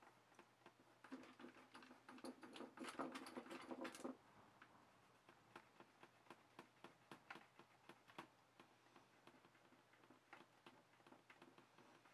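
Faint scratching of a fingertip rubbing leftover transfer paper off a toner-transfer copper PCB, with many small ticks. The rubbing is louder from about one to four seconds in.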